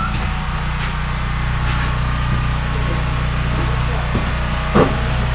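Steady low mechanical hum, with a few short knocks about four and five seconds in, the second the loudest.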